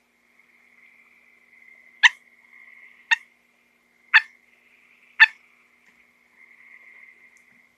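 A small frog giving four short, sharp chirping calls about a second apart, over a faint steady high-pitched tone.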